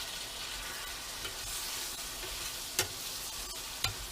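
Diced vegetables sizzling steadily as they fry with spices in a hot pan, with a stirring utensil knocking sharply against the pan twice near the end.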